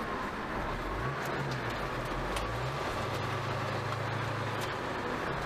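Ford Mustang's engine and road noise heard from inside the cabin while driving, the engine note shifting up and down a few times as the car pulls away and cruises.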